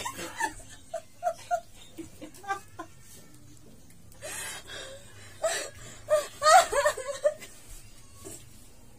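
A woman's stifled laughter and giggles while being tickled, in short bursts, loudest in a cluster about five to seven seconds in.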